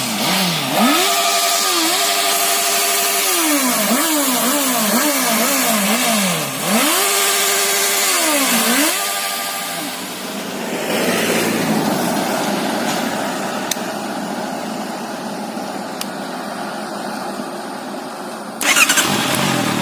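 Honda CBR650F's inline-four engine on its stock exhaust being revved. The revs rise and hold, fall back, blip several times quickly, then rise and hold again before dropping. For the rest there is a steadier, fainter engine-and-rushing noise, with a sudden louder burst of noise near the end.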